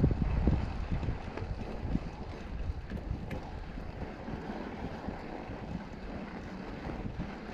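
Wind buffeting the microphone, a steady low rumble with a few louder thumps right at the start.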